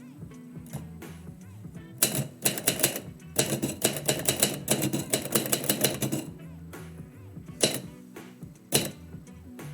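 Typewriter keys striking in a quick run of typing lasting about four seconds, then two single strokes near the end, over background music.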